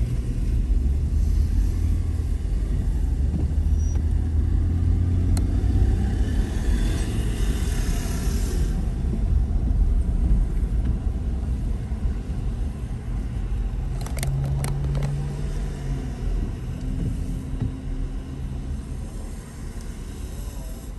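Road noise inside a moving car on a wet road: a steady low rumble of engine and tyres, with a tyre hiss that swells for a few seconds about a third of the way in. It grows quieter near the end as the car slows to a stop.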